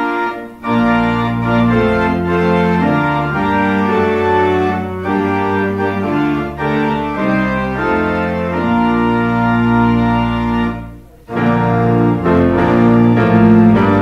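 Church organ playing held chords over a low bass line. The music breaks off briefly about eleven seconds in, then starts again.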